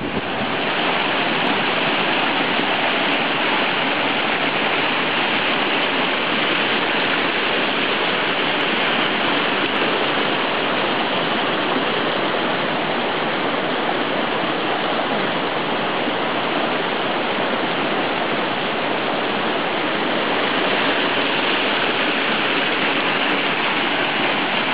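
Gore Creek, a mountain creek, rushing over rocks in a steady, loud rush of white water.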